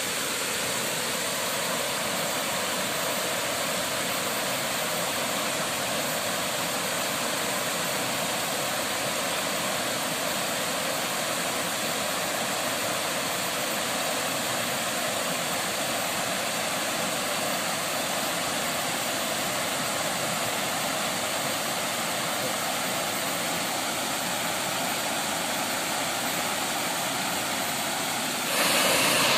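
Steady rushing of water pouring over a small cascade into a pool; about a second before the end the rushing gets louder and its tone changes.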